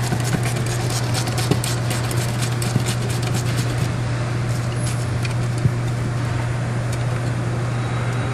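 Ratchet wrench clicking in short runs as it backs out a 10 mm bolt, the clicks thinning out about halfway through, over a steady low hum.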